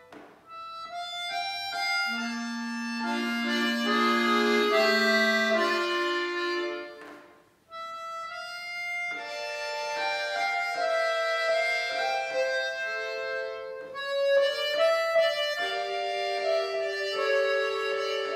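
Piano accordion played solo: held chords with melody notes moving over them. The playing breaks off briefly about seven and a half seconds in, then starts again.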